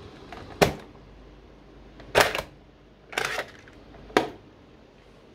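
Plastic clicks and clacks from a Sankyo STR-100E cassette recorder's tape deck: the eject key is pressed and the cassette door pops open, the cassette is pulled out, and the door is snapped shut. Four sharp clicks in all, the second and third each doubled.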